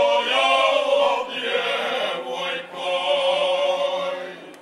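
A group of men singing a folk song unaccompanied, several voices in close harmony. They end on a held chord that fades out shortly before the end.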